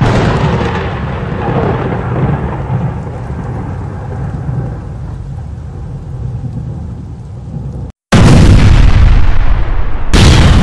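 Thunderstorm sound effect: rolling thunder over rain, easing off over several seconds. It cuts out briefly about eight seconds in and comes back much louder.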